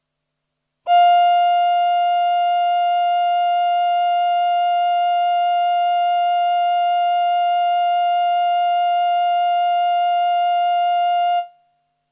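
A single synthesizer note held at one steady pitch for about ten seconds. It comes in sharply about a second in, slightly louder at the attack, then settles and cuts off near the end.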